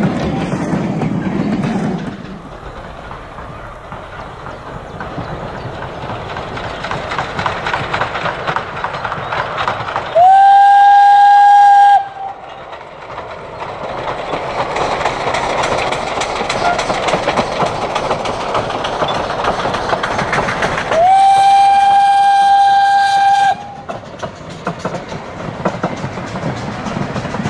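A narrow-gauge train's coaches rumble over the rails for the first two seconds, then the train runs along the line while the steam locomotive U37.002 sounds its steam whistle twice. Each blast lasts about two seconds, swoops up at the start and then holds one steady high note. The second blast comes about ten seconds after the first.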